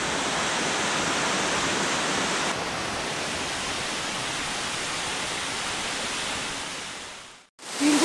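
Waterfall pouring over rock: a steady, even rush of falling water. It drops slightly in level about two and a half seconds in and fades out near the end.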